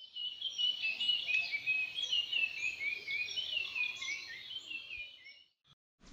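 Many small birds chirping together in many short, overlapping high chirps that fade out about five seconds in.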